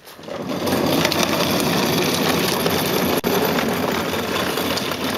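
Hard plastic wheels of a child's ride-on push car rolling fast over rough asphalt. A steady rumble that starts suddenly.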